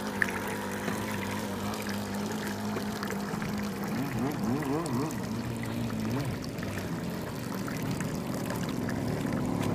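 Small gasoline boat engine running steadily with a low hum, over pouring, trickling water. About four seconds in, a pitch wavers quickly up and down a few times for a couple of seconds.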